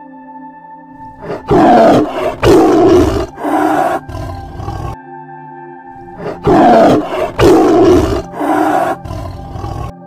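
Tiger roaring: two runs of three or four loud, rough roars about five seconds apart, over background music with steady held tones.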